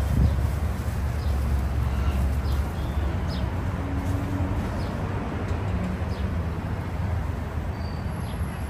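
City street ambience: a steady low rumble of traffic with scattered short bird chirps, and a dull thump just at the start.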